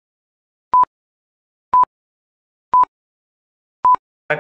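Quiz countdown timer beeping: four short, identical high beeps, one a second, with dead silence between them, counting off the seconds of the answer time.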